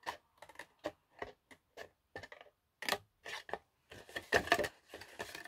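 Small scissors snipping through cardstock in a run of short cuts, about three a second, loudest and quickest around four seconds in.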